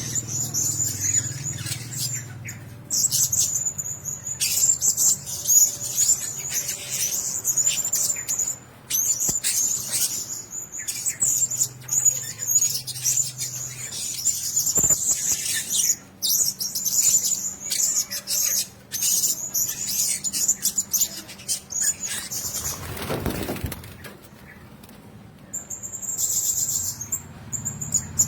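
Blue-crowned hanging parrots chirping: rapid, high-pitched squeaky notes in bursts with short pauses between them.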